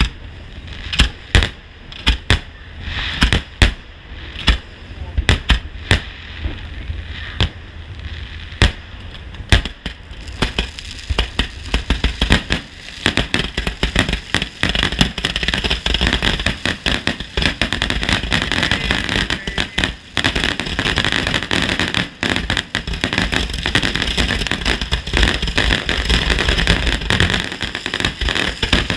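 Fireworks display: separate sharp shell bursts every half second or so, then from about ten seconds in a dense, unbroken barrage of rapid reports and crackle.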